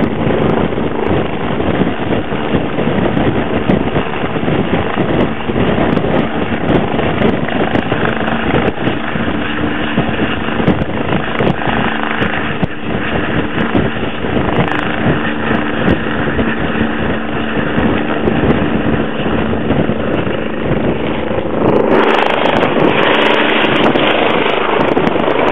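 Eurocopter EC145 rescue helicopter hovering close by, its rotors and turbines running loud and steady with a constant droning tone. About 22 seconds in the noise turns brighter and hissier as the helicopter moves off.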